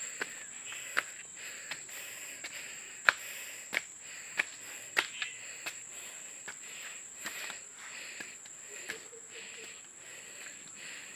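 Steady high-pitched insect drone, broken by irregular sharp clicks, the loudest about three seconds in.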